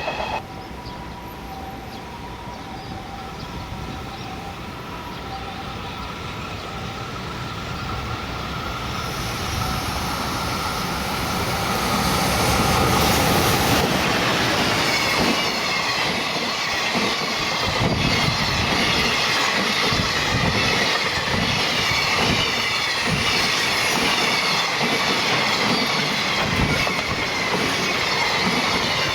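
Electric locomotive-hauled freight train approaching and passing, growing louder over the first twelve seconds or so, then a steady rumble and clatter of wagon wheels knocking over rail joints.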